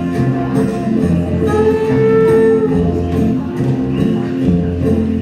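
Music playing: a loud instrumental passage with held notes over a bass line that changes about once a second, and no words.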